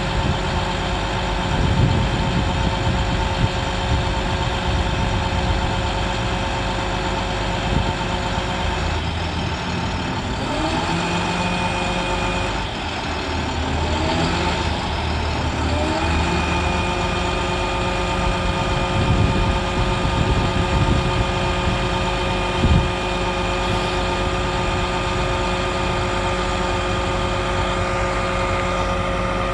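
International MaxForce DT466 turbo diesel engine running steadily while the Altec boom is moved on its hydraulics, with a steady whine over the engine. The pitch wavers and glides for several seconds partway through, then settles with an extra higher whine.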